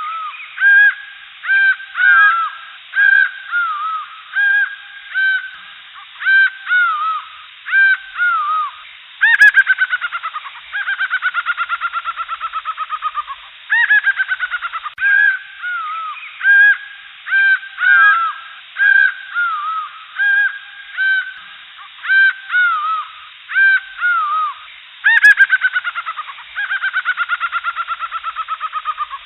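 Jungle birds calling: many short, arched, whistled notes, with long rapid runs of notes that slide down in pitch a few times. The same sequence comes round again about every 16 seconds, as a loop.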